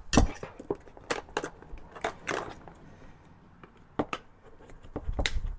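Pry tool clicking and scraping against the plastic retaining tabs of a power window switch assembly as it is worked out of a door panel. It makes a series of sharp clicks with short scrapes between them.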